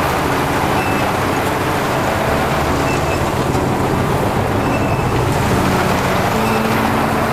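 Mini combine harvester running steadily while it cuts and threshes standing rice: a continuous engine drone mixed with the working noise of the machine.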